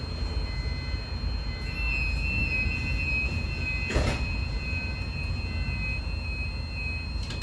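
Fire alarm sounder giving a steady high-pitched tone, which starts about two seconds in and holds, over a low rumbling background. A single knock comes about four seconds in.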